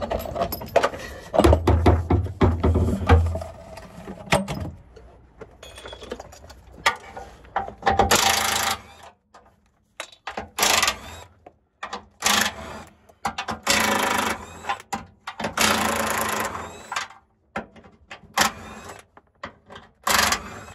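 Rapid clicking of a tool working on the truck's underside, then a cordless impact wrench running in about seven short bursts of under a second each, undoing bolts under a 2005 Chevy Trailblazer.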